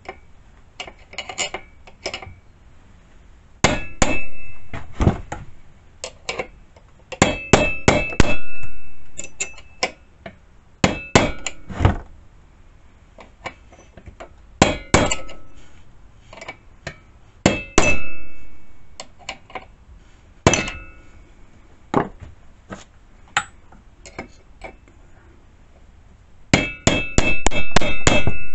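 Hammer blows on steel in irregular clusters of sharp, ringing strikes, with a quick run of blows near the end: knocking the chainsaw's clutch loose to reach the sprocket while a piston stop locks the crankshaft.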